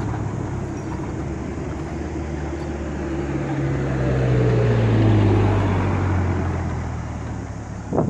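Diesel truck engine pulling away on the road, a low hum that swells to its loudest about five seconds in and then fades.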